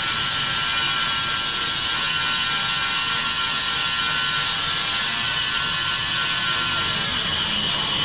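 Large vertical band saw running and cutting lengthwise through a log as it is fed past the blade: a steady high hiss with a faint whine.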